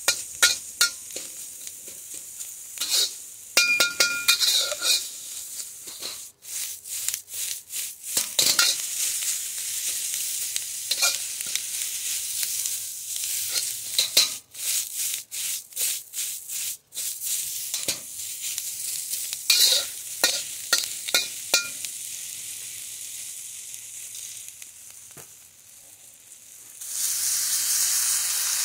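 Vegetables stir-frying in a hot wok: a steady sizzle with a metal spatula repeatedly scraping and clanking against the pan. The strokes ease off after about twenty seconds, and near the end the sizzle swells into a louder, steady hiss.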